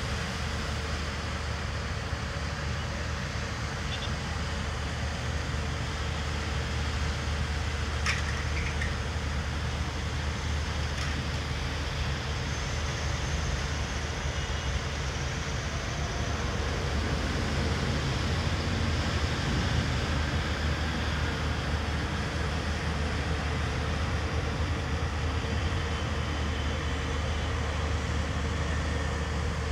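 Steady road traffic noise from a wet city street below, a continuous hiss of tyres and engines with a low rumble under it.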